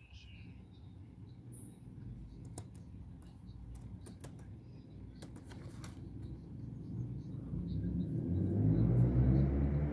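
A few faint clicks and taps, then a low engine rumble that grows steadily louder from about seven seconds in, like a motor vehicle drawing near.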